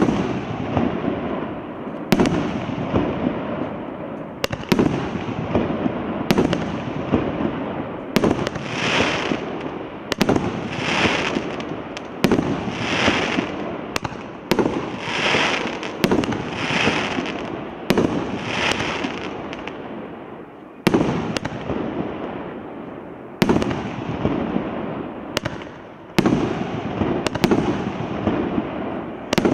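A 36-shot, 1.5-inch consumer firework cake firing its shells in sequence: a sharp report about every two seconds. Through the middle stretch each shot is followed by a brief hissing burst of noise.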